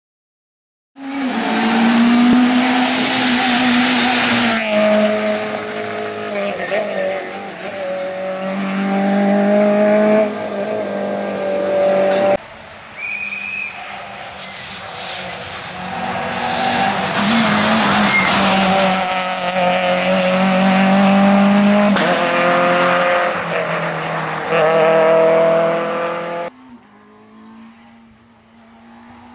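Citroen C2 rally car's engine revving hard as it drives at speed on a tarmac stage, the revs climbing and then breaking off at each gear change. The sound drops suddenly about twelve seconds in and again near the end, leaving the engine fainter and more distant.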